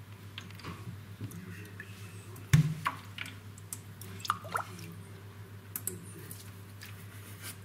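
Weak potassium permanganate solution being scooped from a steel pot with a small glass and poured into the water trays of a foam incubator: liquid dripping and trickling, with small clicks and one sharp knock a little over two and a half seconds in. A steady low hum runs underneath.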